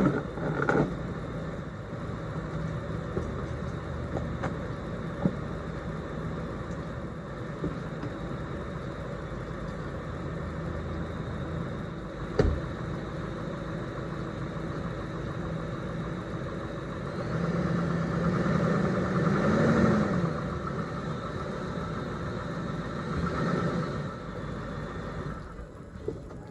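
Cadillac engine idling while the car is driven up onto ramps. The engine note swells and rises briefly, then eases back, about two-thirds of the way through. There is one sharp knock near the middle.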